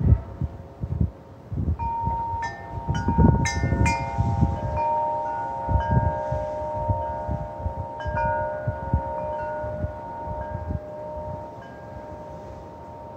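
Wind chimes set going by a gust, several notes struck in quick succession about two seconds in and ringing on together as they slowly fade. Gusts of wind buffet the microphone at the start.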